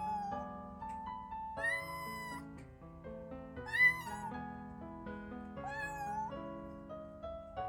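Kitten meowing, calling for its mother: a run of long, drawn-out meows about every two seconds, the loudest near the middle, over soft piano background music.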